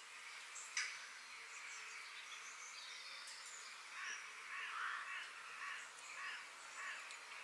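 Forest ambience: small birds chirping high over a steady hiss of background noise. From about halfway through comes a series of louder, harsher bird calls.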